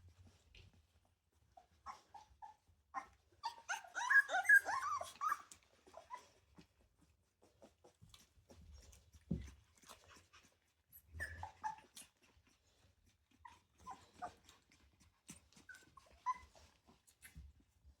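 Litter of three-week-old Rottweiler puppies whimpering and squeaking, with a cluster of overlapping cries about four seconds in, then scattered single squeaks.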